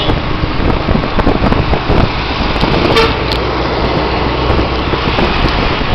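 Road traffic noise heard while travelling along a city highway: a steady rumble of engines and tyres with rushing air.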